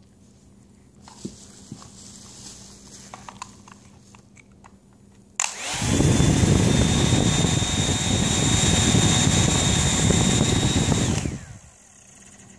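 Handheld hair dryer switched on with a click, its motor whine rising to a steady pitch over a loud rush of air. It runs for about six seconds, then is switched off and winds down.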